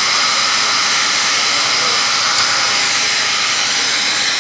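A steady rushing hiss of moving air, like a blower running, with one sharp click about two and a half seconds in.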